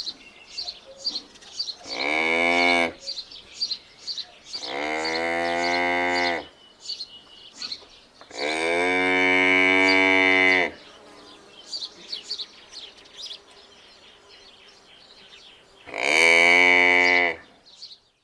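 Cattle mooing: four long moos, the third the longest. Small birds chirp rapidly in the background throughout.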